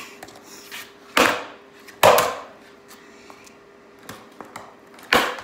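Skateboard clacking on a concrete floor: a sharp knock about a second in and another a moment later, then a louder clack near the end as the board is popped for a kickflip attempt.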